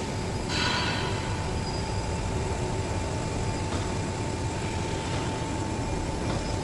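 5-axis CNC machine running, a steady whine over a low hum, with a brief louder rush about half a second in.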